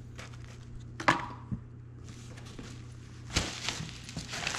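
Cardboard box and packaging being handled: a sharp knock about a second in, then rustling near the end, over a steady low hum.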